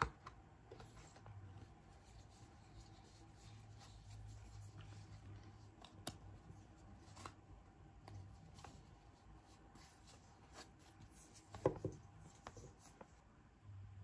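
Quiet handling of paper and card: a stack of printed verse cards being picked up and leafed through, with soft rustles and a few light taps and clicks, the loudest right at the start and again about twelve seconds in. A faint steady hum lies underneath.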